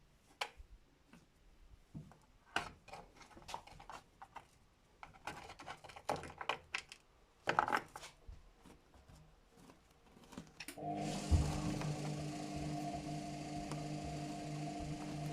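Scattered clicks and knocks at a Luxor WM 1042 washing machine. About two-thirds of the way through, the machine starts running with a steady hum and hiss, a single low thump coming just after it starts, as it begins its 90°C cotton cycle.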